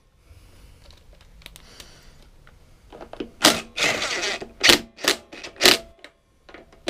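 Cordless power driver with a socket extension running down the carburettor mounting bolts on a lawnmower engine, closing a gap so the carburettor seals. After about three seconds of faint hum come several short bursts from the tool and one longer one.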